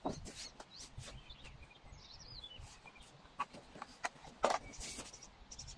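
Faint scattered knocks and scuffs of boots and fishing tackle being handled on rock, the loudest a sharp knock about four and a half seconds in. A bird chirps briefly about two seconds in.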